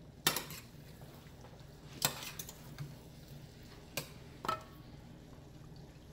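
A metal spoon clinking against a stainless steel cooking pot: four light, sharp clinks spaced over a few seconds, with a faint low hum underneath.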